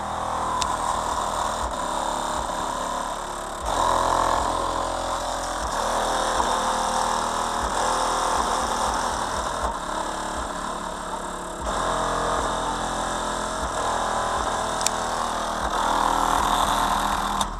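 Ural AS-D 12.3 12-inch car subwoofer in a ported box playing deep, sustained bass, with a rough, engine-like rumble and rattle. The bass shifts to new held notes about 4 seconds in and again near 12 seconds.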